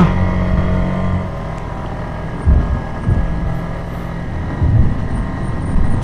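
Motorcycle engine running while riding, with wind rumble on a rider-mounted action camera's microphone. A steady engine hum drops away about a second in, leaving road and wind noise with two brief low gusts.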